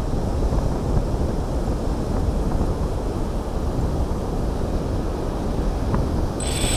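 Wind buffeting the microphone in a steady low rumble. Near the end a thin, high, steady whine sets in as the quadcopter drone's motors start up.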